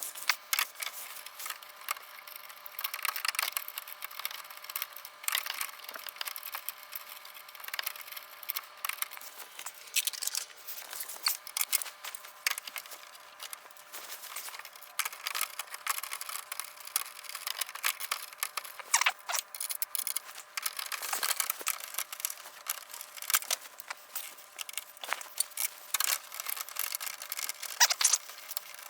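Irregular small clicks, taps and rattles of small bolts and a plastic diffuser fin being handled and worked into place by hand, some sharper clicks near the end.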